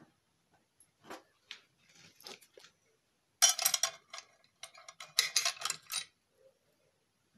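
Small metal parts clicking and rattling as hands handle the bolts and fittings of a battery mounting plate on a bicycle frame: a few light clicks, then two short bursts of dense rattling.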